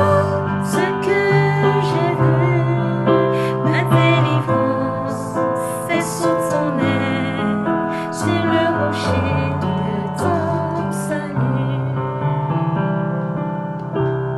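A woman sings a French worship song to chords on an electric keyboard. Her voice stops about eleven seconds in, and the keyboard holds its last chords alone, fading near the end.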